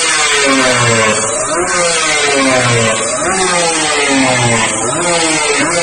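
Kawasaki Ninja 150 two-stroke single with a Hokage aftermarket exhaust, revved in repeated quick throttle blips about once a second, the pitch rising and dropping back each time.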